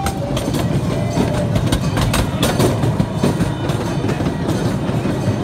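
Open-sided ride train car rolling along its track: a steady rumble with frequent sharp clacks and rattles from the wheels and car.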